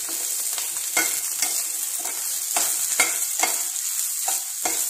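Whole green chillies frying in oil in a pan, still part-cooked, with a steady high sizzle. A spatula scrapes and knocks against the pan about twice a second as they are stirred.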